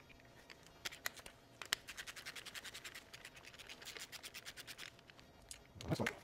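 Ratchet wrench clicking faintly as it backs out the piston oil-jet bolts in a Toyota 2AZ-FE engine block. A few separate clicks come about a second in, then a rapid, even run of clicking for about three seconds.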